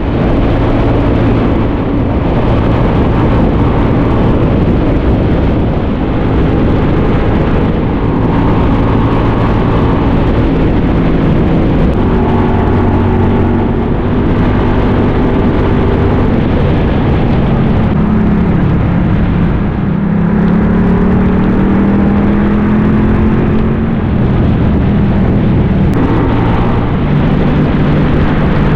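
Kasinski Mirage 250 V-twin motorcycle engine running under way, its pitch rising and falling as the revs change, over a dense low rumble.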